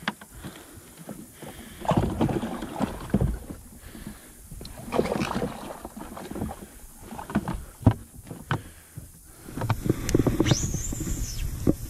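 Close handling noise of a soft plastic bait being rigged on a hook: rustling, taps and irregular knocks against the boat. Near the end a high whine rises and falls for about a second as the baitcasting reel's spool spins out on a cast.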